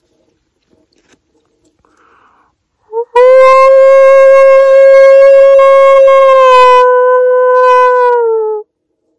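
A man howling through cupped hands to imitate a wolf and draw a reply from a pack: a brief short note, then one long, steady howl of about five seconds that slips lower in pitch at the end.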